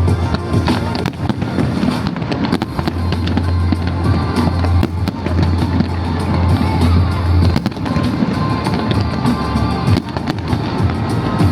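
Fireworks bursting and crackling in quick, irregular succession over loud music with a heavy steady bass.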